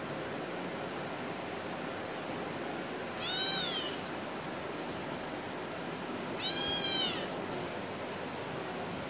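A kitten meowing twice, about three seconds apart: each meow is high-pitched, lasts about a second and rises then falls in pitch. A steady hiss runs underneath.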